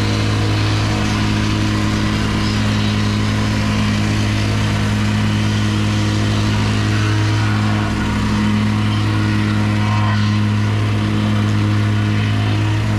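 Compactor running steadily with an even, low hum as it compacts the driveway's gravel base.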